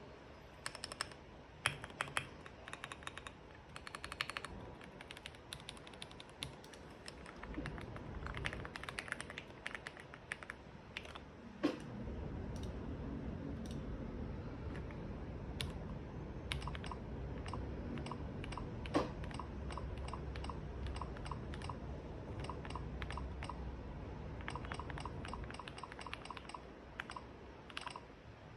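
Typing on a modded RKM75 mechanical keyboard with Gateron Milky Yellow Pro linear switches and Akko SAL keycaps: irregular runs of key presses with short pauses between them. A low steady rumble sits underneath through the middle of the stretch.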